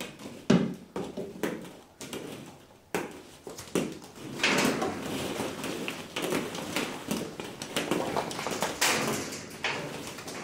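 Hollow plastic ball-pit balls clattering and bouncing: scattered knocks at first, then from about four and a half seconds a dense rattling cascade as another batch is poured in.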